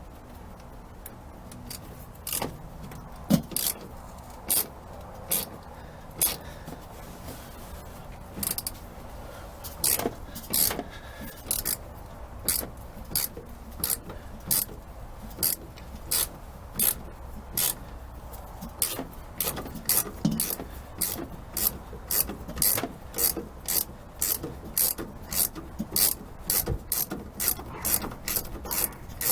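Socket ratchet on a long extension clicking as it is swung back and forth, turning a nut at the brake master cylinder. The clicks are scattered at first, then settle into a steady rhythm of about two a second.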